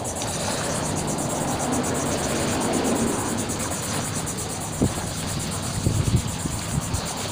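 Steady outdoor rumble of wind on a phone microphone with a faint, steady engine drone underneath. A few short thumps come about five and six seconds in.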